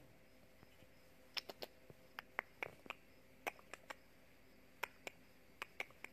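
A scattered run of about fifteen short, sharp clicks at irregular spacing, some in quick pairs, over a faint steady hiss.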